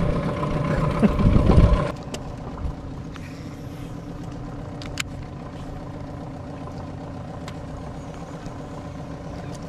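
An engine running steadily at idle. It is louder for the first two seconds, then drops to a lower, even hum, with a few light clicks.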